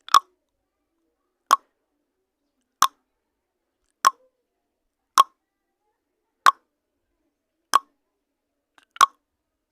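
Countdown timer sound effect: a short, sharp tick repeating evenly about every 1.3 seconds, eight times, with silence between.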